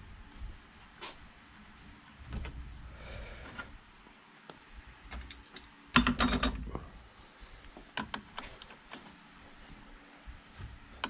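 Small metallic clicks and taps of a brake hose fitting and its bolt being handled and fitted to an ATV handlebar brake master cylinder, with a louder clatter of metal tools about six seconds in.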